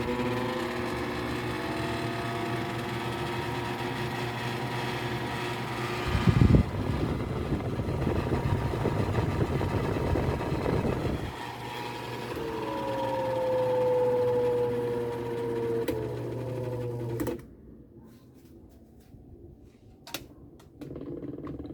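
Mondial electric fan running: a steady motor hum with a whine that slides in pitch, a noisier stretch about six to eleven seconds in beginning with a loud knock. The sound cuts off sharply about seventeen seconds in, leaving a few faint clicks.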